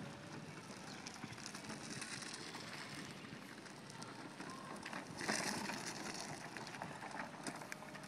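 Remote-controlled utility cart on wheelchair drive motors rolling over the ground: a steady, grainy crunch and hiss from its wheels, growing louder for about a second some five seconds in.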